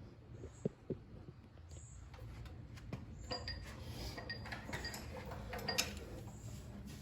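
Faint, scattered metallic clicks and light scraping of hand tools working a brake line fitting loose.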